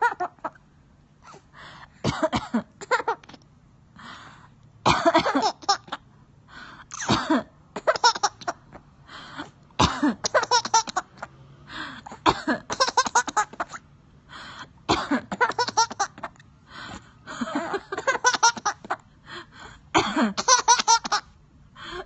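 A woman coughs repeatedly in short bouts, and a small child laughs in delight after each one. The pattern repeats every few seconds.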